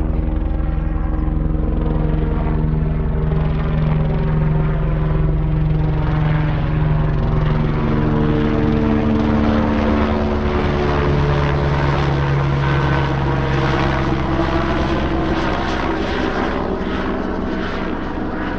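Small propeller aircraft flying low overhead, its engine running steadily. The engine note drops slightly about halfway through as it passes.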